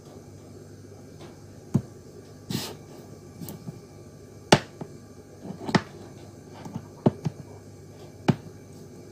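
Two large electrolytic capacitors handled and set down on a cutting mat: about six light knocks and taps spread irregularly, with softer handling rustle between them, over a steady low background hum.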